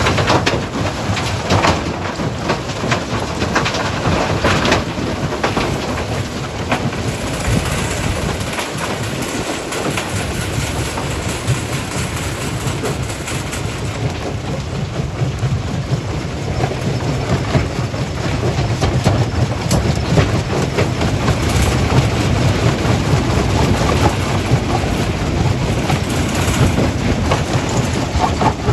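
Stone crushing plant running: a steady low machine rumble with irregular rattling and clatter of rock throughout.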